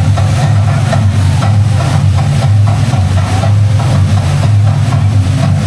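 Loud, steady low rumble and rush of churning water in a fast-moving water-park river.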